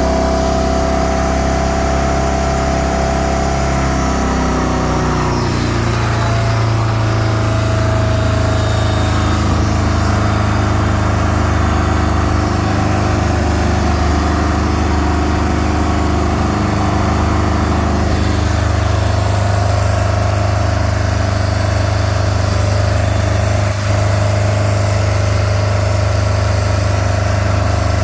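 MerCruiser 3.0 four-cylinder marine engine running, which the owner says has an exhaust leak. Its pitch shifts about five seconds in, then holds steady.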